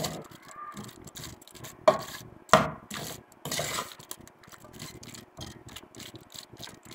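Wooden spoon stirring and scraping cubed chicken around an aluminium pot: many quick clicks and scrapes, with a few sharper knocks against the pot about two and two and a half seconds in.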